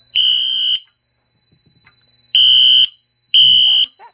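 Wheelock NS fire alarm horn sounding in the code 3 (temporal-three) pattern. There is one half-second horn blast, a pause of about a second and a half, then two more half-second blasts, the start of the next cycle. The system is in alarm after a magnet test of the smoke detector; a faint steady high tone runs underneath and stops near the end.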